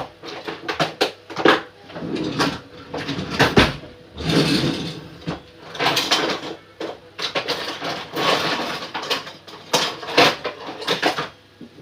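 Kitchen clatter: dishes and food containers being handled and set down, with repeated sharp clicks and knocks, the loudest about three and a half seconds in, among indistinct voices.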